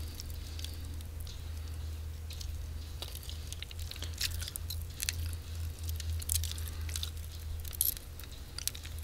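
Wet squishing and sticky crackling of raw chicken wing meat and skin being worked down along the bone with the fingers, loosening the bone. Irregular small clicks and crackles run on throughout.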